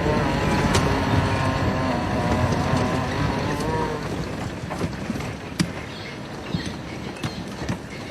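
Safari game-drive vehicle's engine running, dying away about four seconds in; after that, scattered sharp snaps and clicks.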